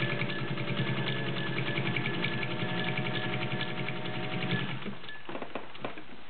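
Singer 201-2 sewing machine with its direct-drive potted motor running, sewing in reverse with rapid, even needle strokes over a steady hum. It stops a little over four seconds in, followed by a few light clicks.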